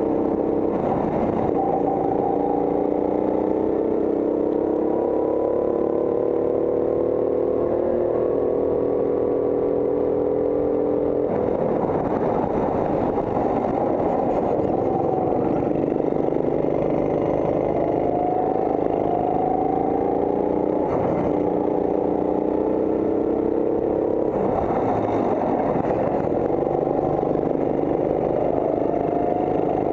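Go-kart engine heard from on board, running hard: its pitch climbs steadily as the kart accelerates, drops sharply about 11 seconds in and again about 24 seconds in as it lifts off for corners, then climbs once more near the end.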